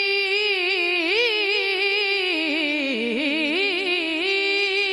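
A solo voice singing a devotional Urdu manqabat, holding one long note on a word. In the middle the note breaks into a wavering ornamented run that dips lower, then it settles back on the held note.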